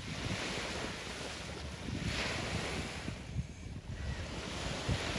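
Sea waves washing onto the beach, the surf swelling and falling every two to three seconds, with a low rumble on the microphone underneath.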